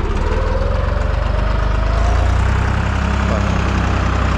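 Deutz-Fahr 55F tractor's diesel engine running steadily, picking up a little about two seconds in, with a faint whine rising over the first couple of seconds. The engine is still warming up.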